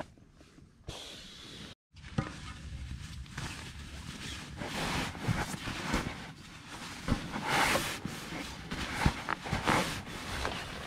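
Rustling and handling noises of camping gear inside a tent, with bedding and a crinkly foil ground mat shifting and scattered small knocks and clicks. The sound starts after a brief gap about two seconds in.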